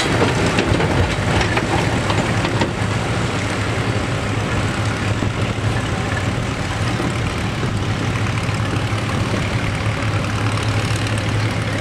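John Deere farm tractors' diesel engines running steadily at low speed as they pass close by, with a low hum that grows a little stronger near the end.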